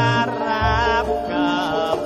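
Javanese gamelan music (karawitan) with a singer holding wavering, ornamented notes over steady instrumental tones. A deep, sustained low note enters about halfway through.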